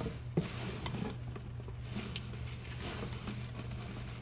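Scattered light clicks and rustles of small parts and tools being handled, with one sharper knock about half a second in, over a steady low hum.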